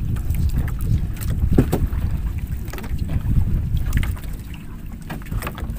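Wind buffeting the microphone as a low rumble, with scattered light knocks and rustles as a fishing net is hauled and handled over the side of a boat. The rumble eases a little about four seconds in.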